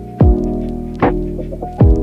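Lofi hip-hop background music: sustained keyboard chords over a slow beat, with a kick drum a moment in and again near the end and a snare hit between them.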